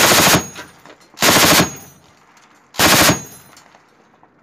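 7.62 mm medium machine gun firing three short bursts, each under half a second long and about a second and a half apart.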